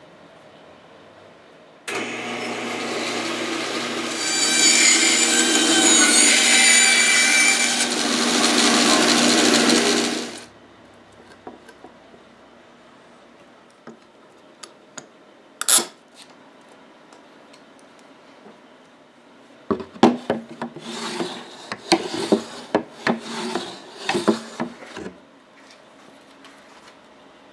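An electric woodworking power tool starts, gets louder as it cuts into wood, runs steadily for about eight seconds and then stops abruptly. A sharp click follows, and later a quick run of knocks, clicks and scrapes from tools being handled.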